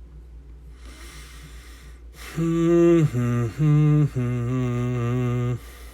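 A man's low voice humming a short tune of four held, slightly wavering notes, starting a little after two seconds in and stopping near the end, after a soft hiss.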